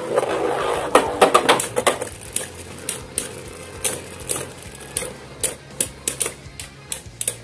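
Two Beyblade Burst tops spinning in a clear plastic stadium and clashing, giving sharp clicks. The hits come in a dense flurry about one to two seconds in, then single clicks every half second or so.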